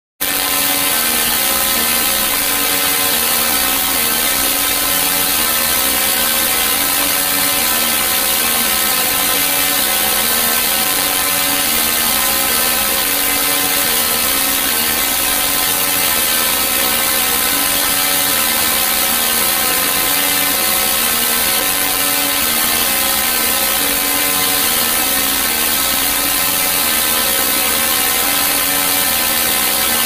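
Synthesized sci-fi 'alien' sound effect: a continuous, harsh electronic buzz of many stacked tones with a bright hiss on top and a fast, repeating wobble in its lower tones, going on without a break.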